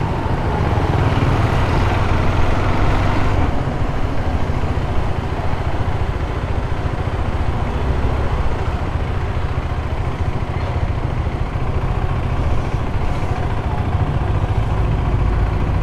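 KTM 390 Adventure motorcycle underway: a steady rush of wind and road noise with a deep low rumble, unbroken throughout.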